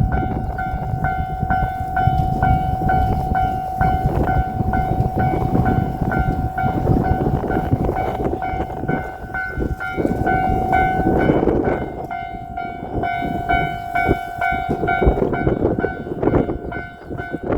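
Railroad crossing warning bell ringing on and on over the rumble of a JR Shikoku 2700 series limited express diesel railcar passing the crossing. The train's rumble dies down about two-thirds of the way in while the bell keeps ringing.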